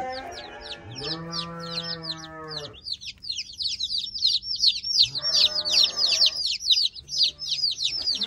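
A brood of day-old chicks peeping nonstop in a rapid, overlapping stream of high, falling peeps. A low held humming tone comes in twice, for a second or two each time.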